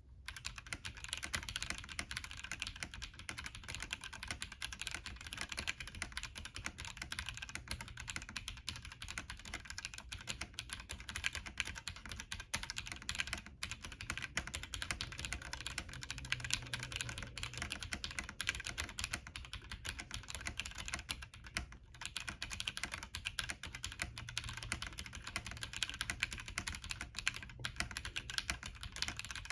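Womier V-K66 gasket-mount mechanical keyboard in stock form, with prelubed red linear switches and a PC plate, being typed on continuously: a fast, dense run of key clicks and clacks.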